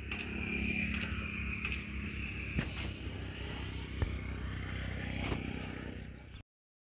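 Wood fire burning in an open clay chulha, a steady low rumble with a few sharp clicks. The sound cuts off abruptly near the end.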